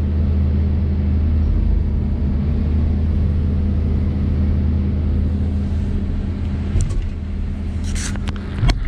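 Log loader's diesel engine running steadily with a low rumble, heard from inside the operator's cab. A few sharp clicks come in the last couple of seconds.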